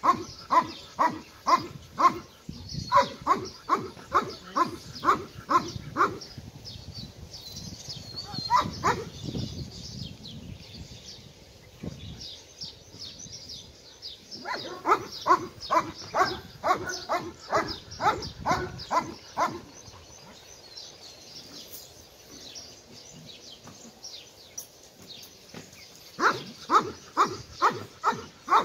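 A dog barking in runs of about two or three barks a second, with quieter pauses between the runs.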